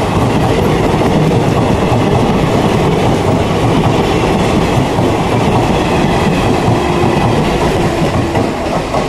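Indian Railways sleeper-class passenger coaches rushing past at speed, a loud steady rumble of steel wheels running over the rails.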